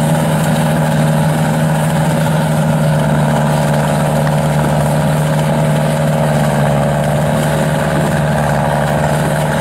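Yanmar AW82 combine harvester's diesel engine, fitted with a Hyundai turbocharger, running hard at a constant speed while cutting rice. It is a loud, steady drone with a fixed pitch.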